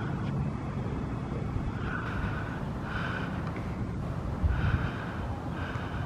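Steady low rumble of wind on the microphone during a walk, with short, soft breath-like hisses recurring about once a second from about two seconds in.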